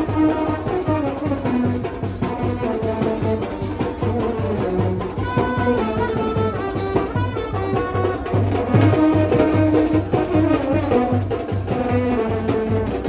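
Brass band music: horns playing a melody in held notes over a steady drum beat.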